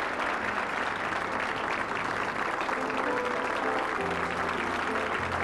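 Studio audience giving a standing ovation, dense steady applause, over background music with held notes and a bass line that shifts about four seconds in.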